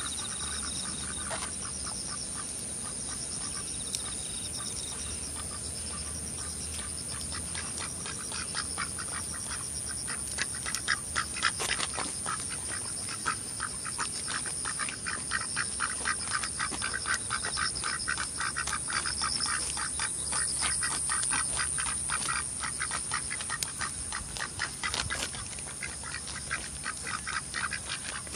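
Domestic ducks quacking in rapid runs of short calls. The calls are faint and scattered at first, then from about ten seconds in they become a dense, loud series that thins out near the end.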